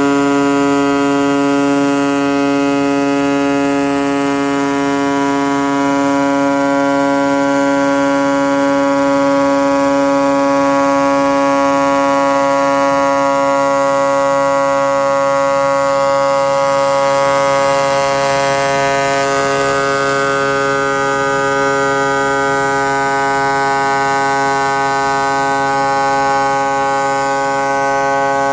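CNC sheet-cutting machine running on 3.5 mm asbestos sheet, giving a steady buzzing hum at one pitch. A little extra hiss comes in about two-thirds of the way through.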